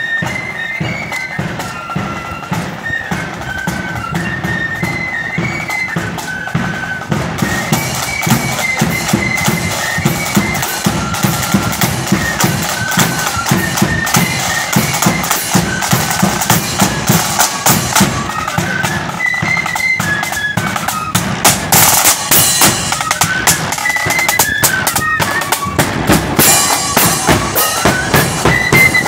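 Marching flute band playing a melody on flutes over side drums and a bass drum beating a steady march rhythm. It gets noticeably louder about seven seconds in.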